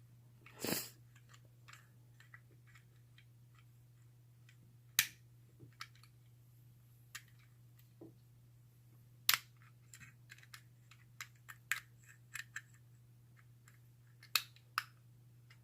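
Lock picking in a Squire four-lever brass padlock: irregular small metallic clicks and scrapes of a broken Bogota pick working the levers while a screwdriver tensions the bolt. There is a brief scrape about half a second in and a few sharper clicks scattered through, over a faint steady hum.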